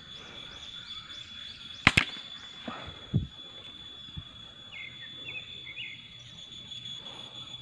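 Pump-action air rifle (Sharp Goppul Night Fury) firing a single shot with a sharp crack about two seconds in, followed about a second later by a dull thump. Birds chirp intermittently around it.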